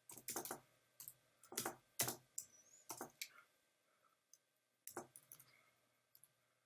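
Faint computer keyboard keystrokes: a filename being typed in short, irregular clusters of key clicks, with a pause of about a second near the middle.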